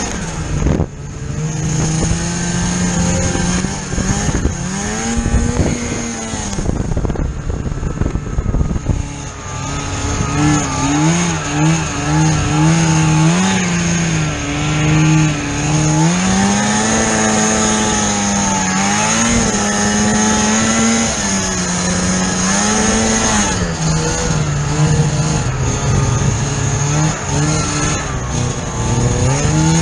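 Snowmobile engine running under load, its revs rising and falling over and over as the sled works through deep powder. A steady high whine sounds throughout.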